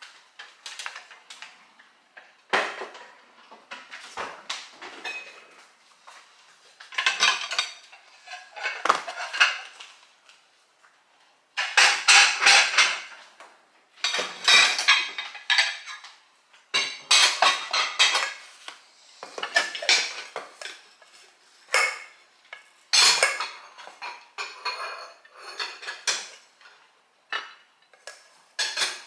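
Dishes, pots and utensils clattering in bursts of knocks and clinks as they are handled and set down on a kitchen counter, with a rice paddle scraping a rice cooker's metal inner pot near the end.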